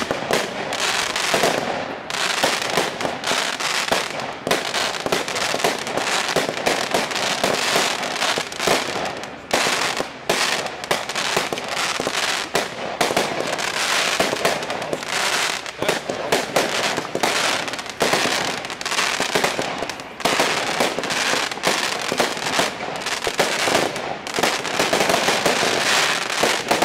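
Maxx Line Celebration Party fireworks going off: a dense, continuous crackle of many rapid small pops and bangs as the gold and red stars burst and break up.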